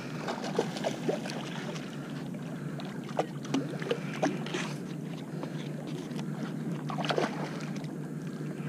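A hooked jack crevalle thrashing at the water's surface: short, irregular splashes over a steady background hiss.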